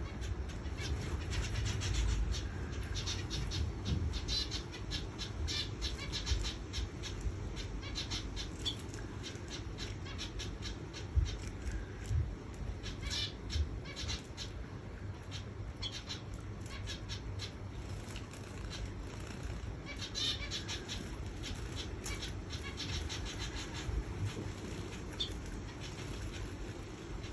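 Finches bathing in a shallow saucer of water: quick bursts of splashing and wing-fluttering in the water, coming in clusters with short pauses between, over a low steady rumble.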